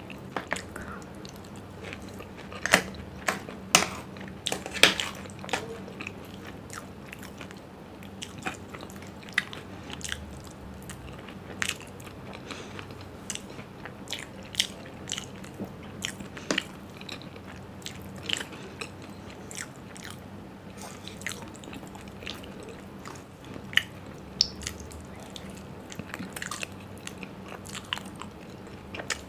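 Close-miked chewing and crunching of raj kachori, a crisp fried shell topped with yogurt and sev, eaten by the spoonful. Irregular sharp crunches and clicks, the loudest about three to five seconds in.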